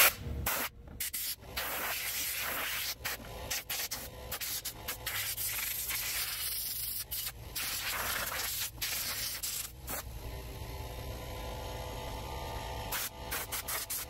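Compressed air hissing from an air blow gun as it blasts dirt out of a window air conditioner's coil, a steady hiss broken by many short pauses.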